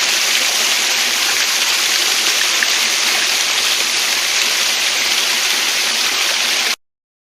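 Waterfall and stream water rushing, a steady, even hiss that cuts off suddenly near the end.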